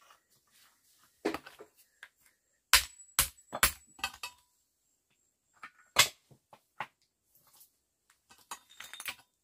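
Flat stones clacking and knocking against each other as they are set in place on a stone cooking stove. There are a handful of sharp clacks, three in quick succession a few seconds in and one louder one later, then a patter of lighter knocks near the end.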